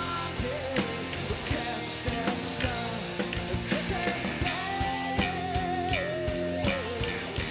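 Live rock band: a male lead singer sings long held notes with a wavering pitch, the longest in the second half, over guitars and a drum kit keeping a steady beat.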